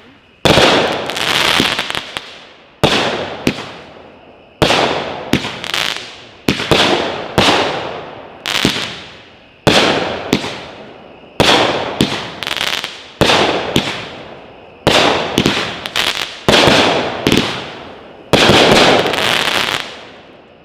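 A 16-shot, 200-gram consumer firework cake (Fisherman Fireworks 'Pro Bro') firing shot after shot, about one every second and a half to two seconds. Each shot is a sharp bang followed by a noisy tail that fades over a second or so.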